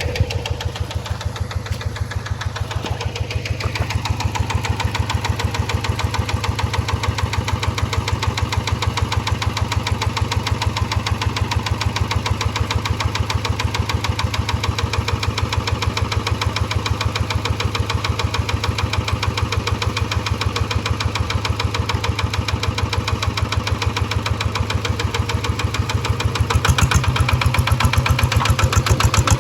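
G1000 hand-tractor engine on a test run, running steadily with a fast, even thumping beat. It grows louder near the end.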